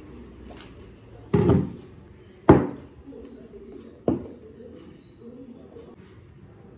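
Three knocks from smartphones being handled and set down on a wooden table: a dull thud about a second in, a sharper, louder knock a second later, and a smaller knock about four seconds in.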